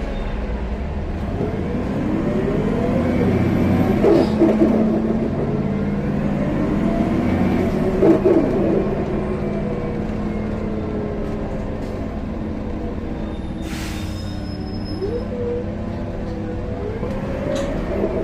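2014 Gillig Low Floor BRT Plus CNG bus running: a steady low engine rumble with a drivetrain whine that rises and falls in pitch several times, a few knocks, and a brief hiss about fourteen seconds in.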